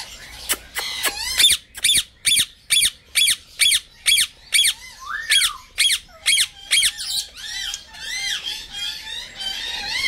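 Senegal parrot calling: a rapid run of sharp, high-pitched calls, about two or three a second, for around six seconds, then softer, wavering chatter.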